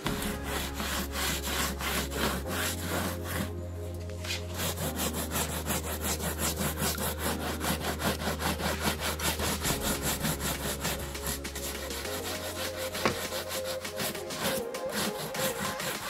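Stiff hand brush scrubbing fabric seat upholstery in quick, rhythmic back-and-forth strokes, bristles rasping over the cloth. Background music with a steady bass line plays underneath.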